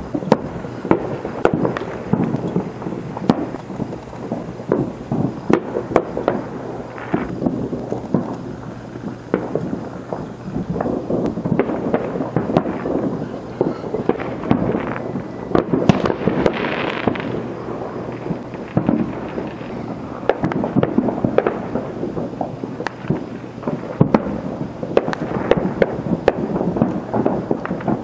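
Many fireworks and firecrackers going off at once: a near-continuous crackle of overlapping pops and bangs, with now and then a louder bang standing out.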